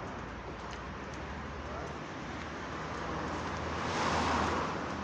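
Street traffic noise, with a car passing close by that swells to its loudest about four seconds in and then fades.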